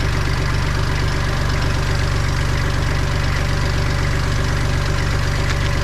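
Kubota L3800 tractor's three-cylinder diesel engine idling steadily.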